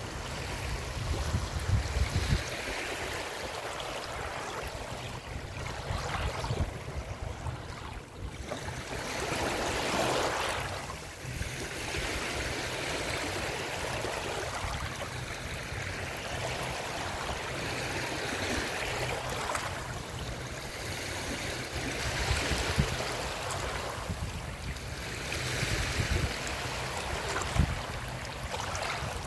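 Small waves lapping and washing over a shallow shore, a steady watery wash that swells and eases every few seconds. There is a low rumble in the first couple of seconds.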